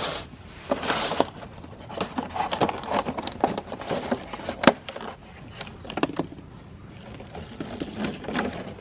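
Meat grinder crushing a large crunchy cookie: a run of irregular sharp cracks and crunches, with a short grinding burst about a second in.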